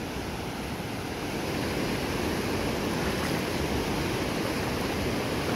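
Steady rush of water pouring over a flooded reservoir spillway, with wind buffeting the microphone.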